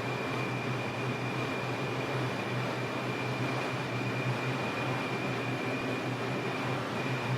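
Inside an R142 subway car as the train runs between stations: a steady rumble of wheels and motors with an even, thin high whine over it.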